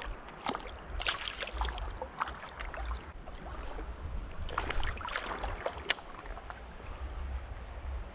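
Shallow creek water splashing and sloshing in several short bursts, the first as a released largemouth bass kicks off, the rest as the angler wades. A low rumble runs underneath.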